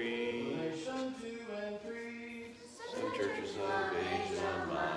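A group of voices singing together in unison without instruments, holding steady notes with a brief break about two and a half seconds in.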